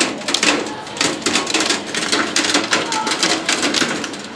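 Hailstones and heavy rain clattering against a window and its sill: a dense, uneven rattle of many small hits.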